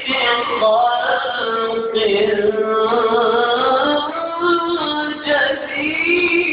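Male reciter chanting the Quran in the melodic, ornamented tilawah style into a microphone. Long held notes wind up and down, with a short breath about two seconds in.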